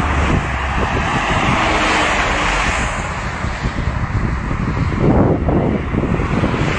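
Loud, steady rushing noise with a low rumble, like wind buffeting the microphone outdoors.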